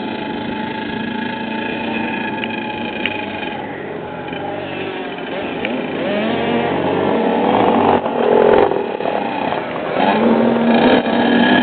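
Several motocross bikes riding around a dirt track, their engines revving up and easing off with overlapping pitches that rise and fall. The engines get louder about two-thirds of the way in as a bike comes closer.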